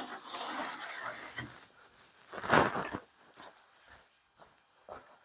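Rustling and handling noise, a louder scrape about two and a half seconds in, then light footsteps on a gritty concrete workshop floor, about two steps a second.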